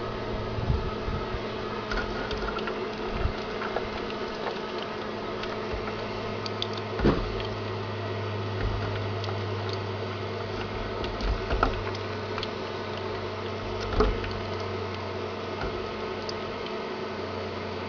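Wood-fired forge running while steel heats in it: a steady low hum over a constant rush of noise, with a few sharp clicks or knocks, the loudest about two thirds of the way through.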